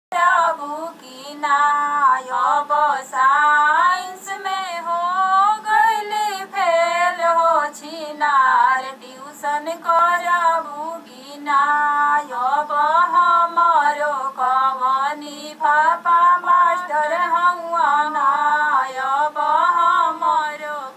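A woman's voice singing a Bihari gali geet, a teasing folk song sung at weddings, in a continuous melodic line with short breaks between phrases.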